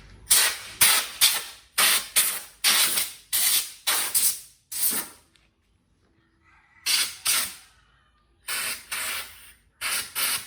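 Compressed-air blow gun hissing in a quick series of short bursts as it blows debris out of a lawnmower's air-filter compartment, with a pause of about two seconds midway.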